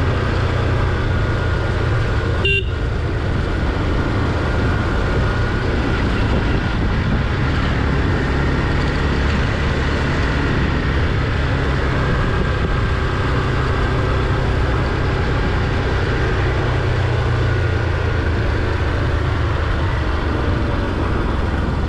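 Motorcycle engine running steadily under way, with wind and road noise on the rider's microphone. A brief sharp knock comes about two and a half seconds in.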